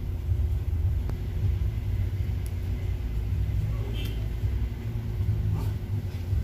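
Steady low rumble with a faint steady hum, and a single light click about a second in.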